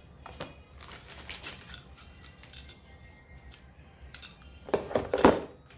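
Small items and packaging being handled while unpacking a parcel: scattered light rustles and clicks, then a louder burst of rustling and knocking near the end.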